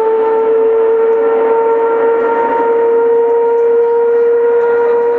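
Formula One car's 2.4-litre V8 engine at high revs as the car pulls away down the straight, holding a steady high-pitched note that rises slightly.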